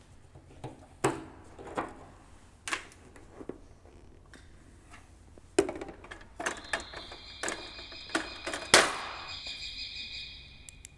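Clicks and metallic knocks as the filler cap on a Cessna 401's wing-tip fuel tank is worked open, with a sharp knock about nine seconds in the loudest. A steady high-pitched tone sounds from about six seconds in.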